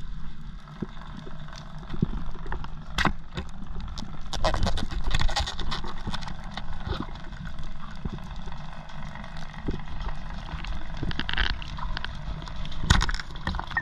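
Underwater sound picked up by a camera below the surface: a steady low rumble of water movement with many scattered sharp clicks and crackles, thicker in two stretches, around a quarter of the way in and again near the end.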